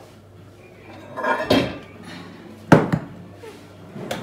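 Kitchen handling clatter as a dish of chicken is taken out of a microwave oven and put on a granite countertop: a scraping rustle about a second and a half in, then one sharp knock near three seconds.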